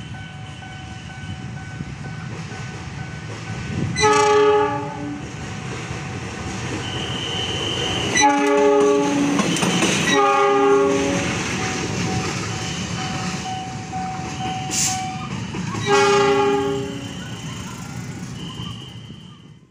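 KAI diesel locomotive sounding its multi-tone horn in four blasts of about a second each, over the rumble and wheel clatter of the passing train.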